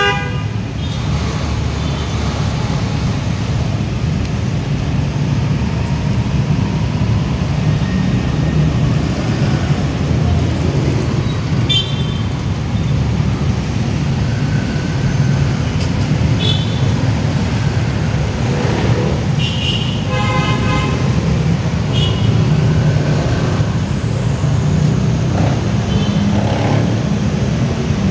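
Steady low rumble of road traffic. Several short high-pitched sounds break in over it, the longest cluster about two-thirds of the way through.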